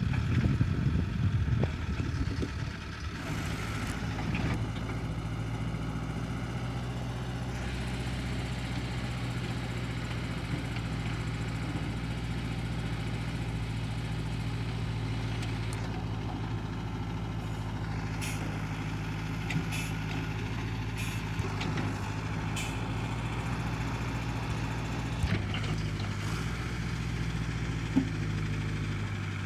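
ZTS DH-112 hydraulic excavator's diesel engine running, louder for the first three seconds, then settling into a steady low idle. A few faint sharp clicks come in the second half.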